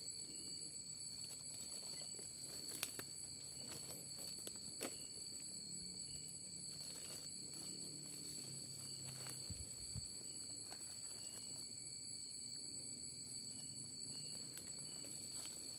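Night insects droning steadily at several high pitches, with slow footsteps rustling through forest undergrowth and a couple of sharp twig snaps about 3 and 5 seconds in.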